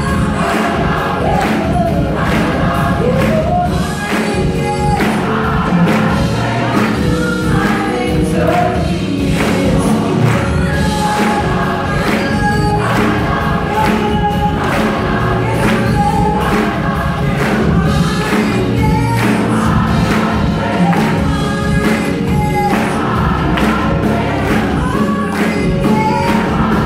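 Large gospel choir singing in full harmony over a live band, with a steady drum-kit beat and electric bass underneath.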